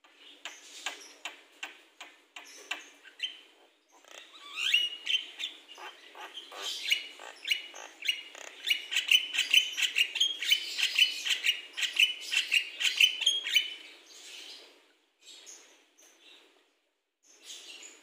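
Javan myna singing: a run of sharp, clicky notes, then from about four seconds in a long, dense chattering phrase of quick repeated notes, breaking into a few shorter bursts near the end.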